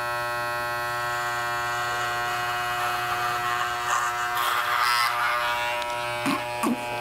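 Corded electric hair clipper running with a steady buzz while it cuts mannequin hair held out on a comb. It gets rougher and louder for under a second about four and a half seconds in, as the blade cuts through the hair.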